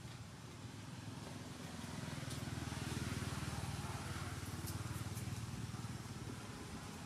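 A motor vehicle engine passing by: a low rumble that swells to its loudest about three seconds in and then slowly fades.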